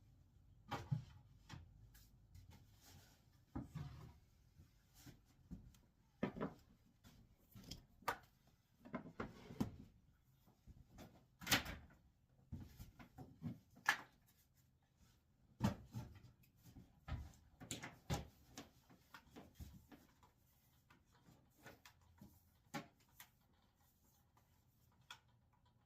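Irregular knocks and clunks of wooden boards and tools being handled and set down, the sharpest about halfway through.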